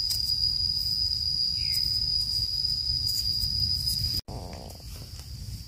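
Steady, high-pitched drone of an insect, a cricket or cicada holding one unbroken tone, over a low rumble. It cuts out for an instant a little over four seconds in, then goes on quieter.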